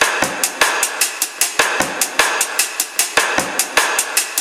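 Background music: a fast drum-kit beat of many quick, evenly spaced hits with a deeper bass-drum thump about every second and a half.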